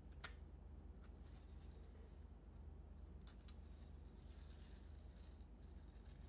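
Faint scraping and rubbing on paper-faced foam board as leftover scraps of paper are picked off with a craft knife and rubbed away by fingers. There is a sharp click just after the start, two small clicks a little past three seconds in, and a soft hiss of rubbing a little later.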